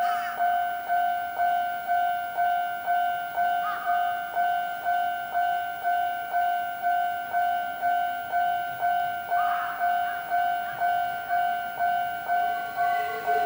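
Japanese railway level-crossing warning bell ringing steadily, about two dings a second, while a Nishitetsu 5000 series electric train runs slowly in over the station points underneath it.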